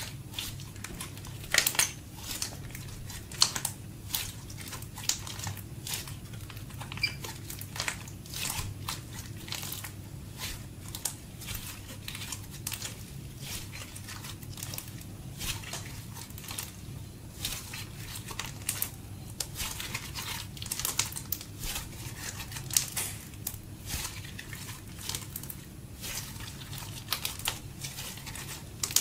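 Slime mixed with crushed lipstick and glitter eyeshadow being kneaded, folded and stretched by hand: a continuous run of irregular sticky pops, crackles and squishes as it is pressed and pulled apart.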